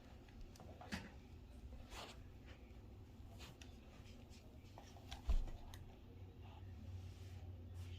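Faint scattered clicks and taps of parts being handled inside a disassembled LED TV, with one dull low thump about five seconds in.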